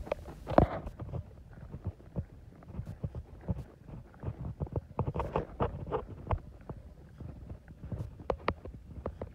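Hikers' footsteps on a rocky dirt trail: a steady run of crunching, scuffing steps on grit and stones.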